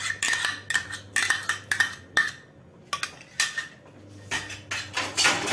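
Steel spoon clinking and scraping against a plastic container and the rim of an aluminium pressure cooker as chopped green chillies are knocked in: a quick run of sharp clicks with a short pause about two and a half seconds in.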